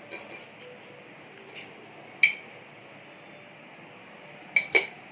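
A spoon clinking against a dish while spices are being measured out: one sharp clink about two seconds in and a quick pair near the end, each with a brief ring.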